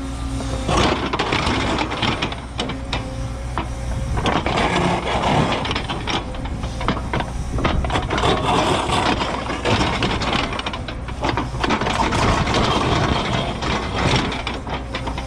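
Cat 314E excavator's diesel engine running under load while its ripper tooth tears into hard bluestone, with irregular cracking, scraping and clanking of rock and steel. A brief steady hydraulic whine sounds near the start.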